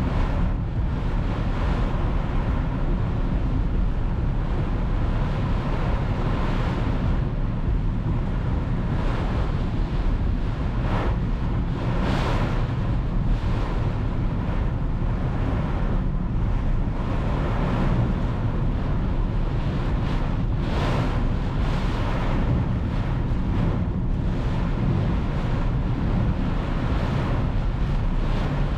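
Heavy tropical downpour with strong wind buffeting the microphone, a steady dense hiss over a low rumble. A few brief swells rise out of the hiss partway through.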